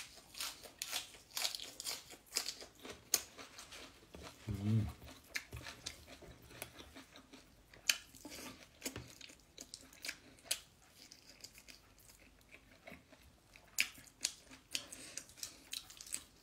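A person eating rice and chicken by hand, close up: wet chewing with many short mouth clicks and smacks, and a brief hum of voice about four and a half seconds in.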